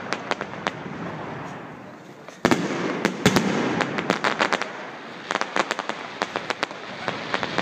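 Aerial fireworks bursting overhead: rapid sharp cracks and pops from crackling stars. A loud bang comes about two and a half seconds in, followed by dense runs of crackles.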